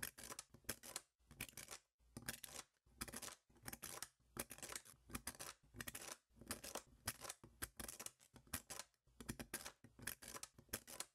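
Small neodymium magnet balls clicking and snapping against each other as a plastic blade slices through a stacked block of them. The clicks come in repeated dense bursts with short gaps between.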